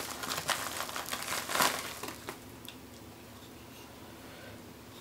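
Anti-static bubble bag crinkling and crackling as a graphics card is pulled out of it, loudest about a second and a half in and stopping after about two seconds.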